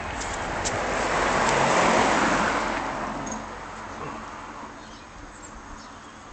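A car driving past: a rush of tyre and engine noise that swells to its loudest about two seconds in, then fades away.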